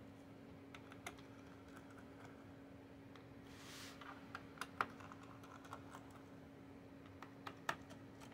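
Faint, scattered small clicks of a T5 screwdriver and fingers on a Razer Blade laptop's back plate as its tiny screws are taken out, with a brief hiss about three and a half seconds in. A faint steady hum runs underneath.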